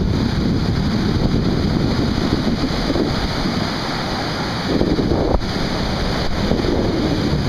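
Surf breaking and washing up a sandy beach, with wind buffeting the microphone; the wash swells louder about five seconds in as a wave breaks.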